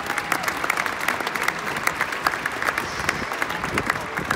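Ballpark crowd applauding, many hands clapping at once.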